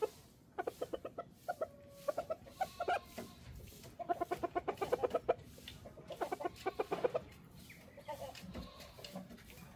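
Chickens clucking and cackling in fast runs of short, rapid notes, four or five bursts with brief pauses between, fainter calls after about eight seconds.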